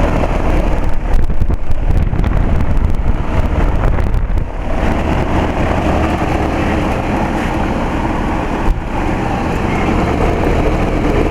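1999 Rheem 4-ton heat pump outdoor unit running in cooling mode: a steady low compressor hum under the rush of the condenser fan. Crackling buffeting on the microphone through the first half or so.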